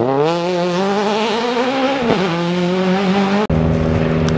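Citroën C2 rally car's engine accelerating hard away, its pitch rising, with a brief dip about two seconds in as it changes gear, then holding steady. About three and a half seconds in, the sound cuts abruptly to a steady, level engine drone.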